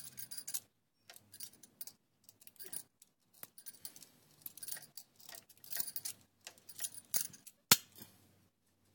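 Metal hand tools being handled: irregular clicks and metallic clinks, with one sharp loud click near the end.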